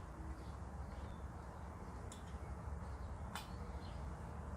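Quiet room tone: a low steady hum with two faint clicks, about two seconds in and about three and a half seconds in.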